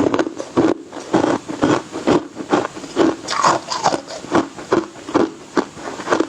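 Ice being chewed and crunched between the teeth, about two crunches a second in a steady rhythm.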